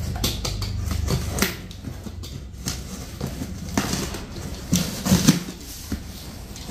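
Packing tape being peeled and torn off a cardboard box, with the cardboard crinkling and scraping in irregular bursts. A low rumble fades out in the first second and a half.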